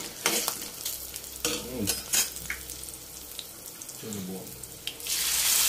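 Oil sizzling in a kadai with a tempering of peanuts, cashews, chillies and curry leaves, turmeric just stirred in, while a slotted spatula stirs and scrapes the pan with scattered light clicks. The sizzle grows louder about five seconds in.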